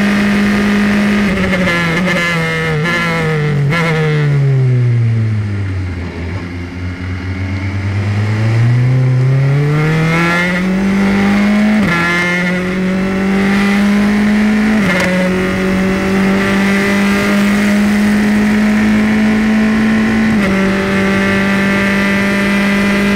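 Formula 3 car's engine heard onboard. It first slows and downshifts, the pitch stepping and sliding down to its lowest point around the middle. It then accelerates hard, the pitch climbing with three upshifts in the second half, each a sudden drop before it rises again.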